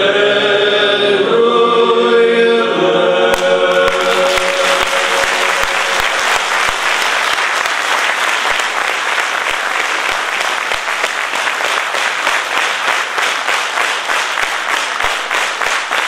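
Male choir singing the final held chord of a Romanian colindă (Christmas carol), then audience applause breaks out about four seconds in and goes on steadily.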